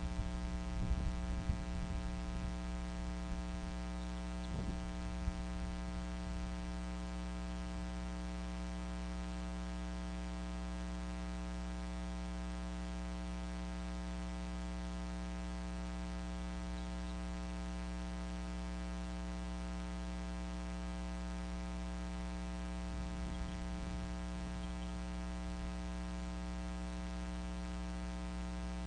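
Steady electrical mains hum, a stack of even tones at a constant level, with a few brief low rustles near the start, about five seconds in, and again around 23 to 25 seconds in.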